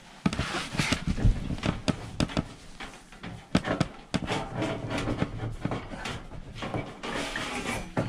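Rustling and irregular knocks and clicks from hands working inside an air handler cabinet, moving the evaporator coil and its sheet-metal drain pan area.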